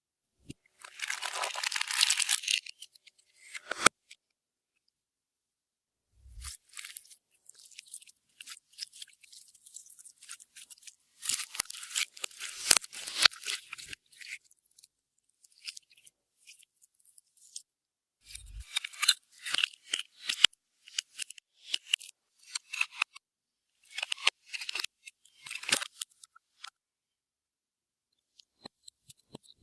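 Crackly, crunchy handling noises from slime-making materials, in several bursts a few seconds long separated by dead-silent gaps, with two brief low thuds.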